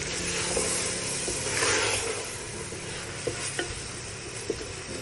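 Chopped vegetables and chicken sizzling in a frying pan while a wooden spatula stirs them, the sizzle swelling louder about one and a half seconds in. A few light knocks of the spatula against the pan come near the end.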